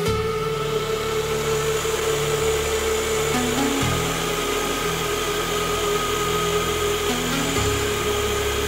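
Background music whose low notes change about every four seconds, laid over the steady running of a milling machine's spindle.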